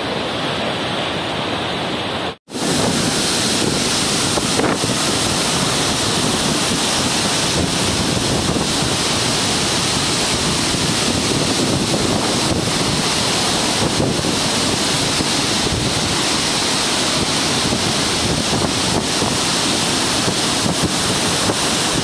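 Heavy flow of water rushing out through the opened spillway gates of Somasila Dam, a loud steady rush. About two seconds in it breaks off for a moment, then comes back louder and brighter.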